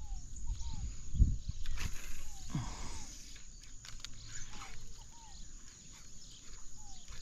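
Birds calling with short descending notes, repeating every second or so, over a steady high tone. A few low thumps and a short hiss come in the first few seconds.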